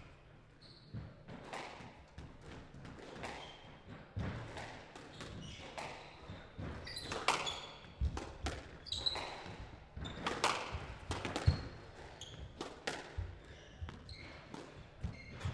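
Squash rally: the ball is struck by rackets and smacks against the walls in an irregular string of sharp hits, one every second or so, in a large hall. Short high squeaks come from the players' shoes on the court floor between the hits.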